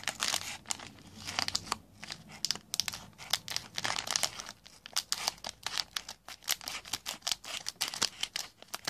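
Plastic package of a Kracie Neru Neru Nerune candy kit crinkling in a rapid, irregular run of crackles as it is handled and cut open with scissors.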